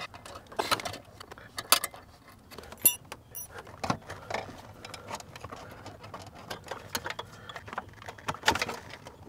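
Irregular clicks, knocks and rattles of plastic wiring connectors and a body control module's sheet-metal case being handled under a car's dashboard, with two brief high-pitched pings about three seconds in.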